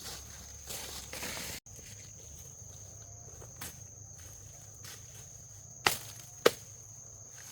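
Two sharp knocks about half a second apart over a steady high whine and light scattered rustling.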